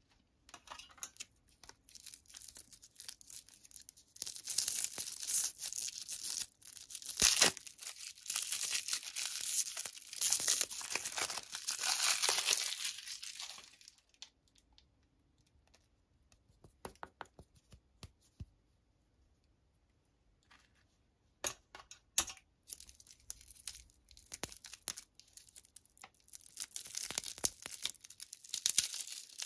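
Chupa Chups lollipop wrappers being torn and crinkled off by hand: dense crinkling and tearing for the first half, then a few scattered rustles and clicks, and crinkling again near the end.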